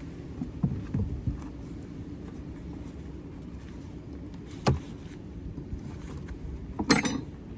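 Wind rumbling on the microphone, with a few knocks and clicks from wooden Layens hive frames being handled. A sharp click comes a little before five seconds in, and a louder knock near the end.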